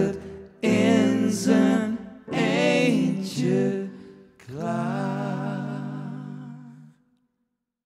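Three men singing the song's closing line in harmony, in three phrases; the last is a long held chord that fades out about seven seconds in, ending the song.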